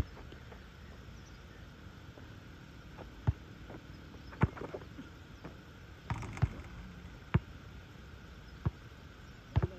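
Basketball bouncing on an outdoor asphalt court during a one-on-one drive: a series of sharp, irregularly spaced thumps, about seven, roughly a second apart.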